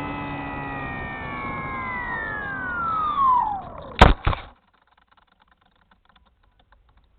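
Spyhawk FPV model plane's electric motor whining steadily, then falling steeply in pitch about three seconds in. Two sharp loud knocks follow about four seconds in, then the sound cuts off suddenly: the plane striking a tree.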